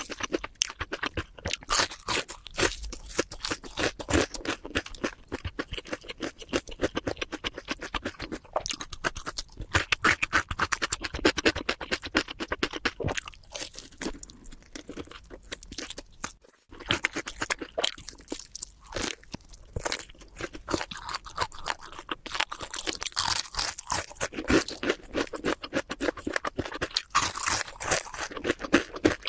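A person chewing and biting crunchy food close to the microphone: dense, rapid crackling crunches throughout, broken only by a very short gap just past halfway.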